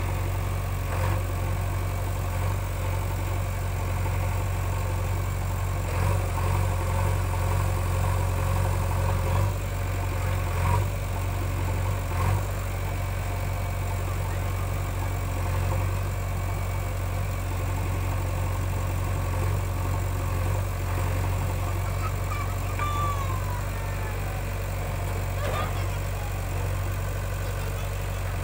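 JCB backhoe loader's diesel engine running steadily with a low hum, swelling briefly a few times.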